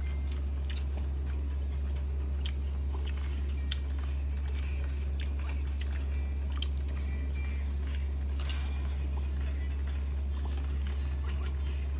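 Close-up eating sounds: a person chewing and biting food, with many short sharp clicks scattered through, over a steady low hum.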